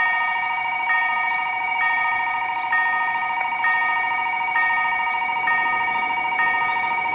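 Electronic railroad crossing warning bell ringing steadily: a fast-repeating two-tone ring, with a higher chime struck a little under once a second.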